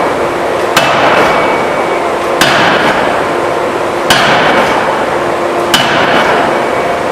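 2-ton hydraulic open die forging hammer striking four heavy blows in an even rhythm, about one every one and a half seconds, each blow ringing briefly. A steady machine noise carries on between the blows.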